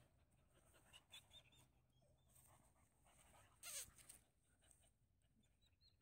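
Faint sounds of puppies play-wrestling: a few short, high squeaks in the first couple of seconds and a brief scuffle about three and a half seconds in.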